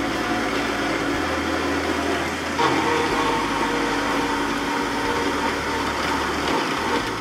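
Horizontal metal-cutting bandsaw running, its blade sawing into a small aluminum block. It grows louder with a higher ringing tone about two and a half seconds in, and it stops abruptly near the end.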